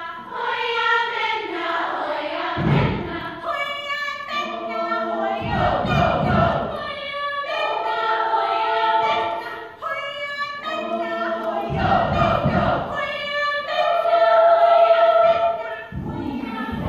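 School choir singing, with low thumps recurring every few seconds under the voices.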